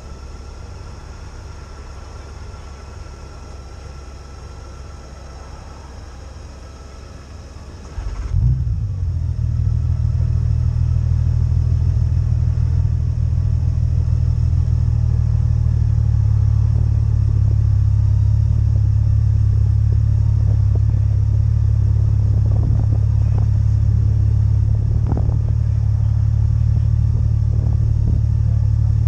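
Motorcycle engines idling. About eight seconds in, a motorcycle engine right at the microphone starts and settles into a loud, steady idle.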